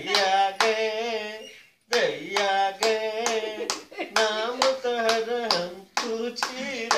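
Rhythmic hand clapping, about two claps a second, with a voice singing a song in long, wavering notes, keeping time for a dancing toddler.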